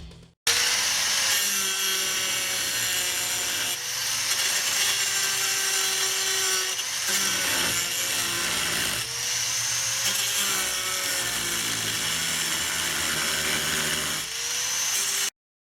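Electric power tool running and cutting, its motor pitch dipping and recovering again and again as it bites under load. It starts abruptly about half a second in and cuts off abruptly near the end.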